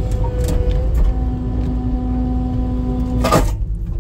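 Skid steer engine running with its hydraulics whining, a steady tone held for about two seconds, then a sharp clunk about three seconds in.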